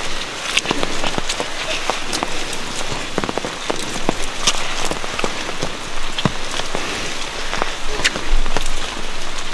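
Dense, irregular crackling and rustling of leaves and branches brushed close to the microphone as people push on foot through thick undergrowth.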